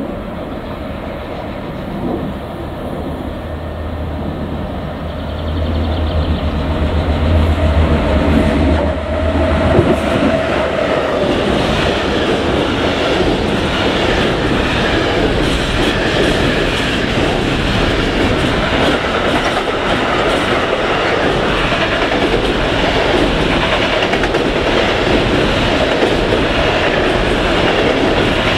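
A container freight train passing close by. The locomotive's low hum grows as it approaches and passes, about nine seconds in. The container wagons then roll by with a steady wheel-on-rail rumble and a rhythmic clickety-clack of wheels over the rail joints.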